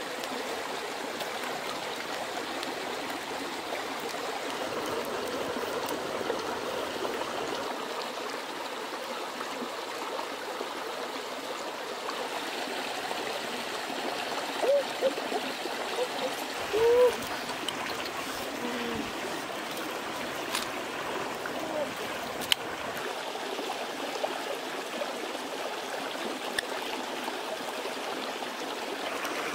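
A rocky stream running steadily, a constant rush of water. A few brief rising-and-falling tones stand out about halfway through.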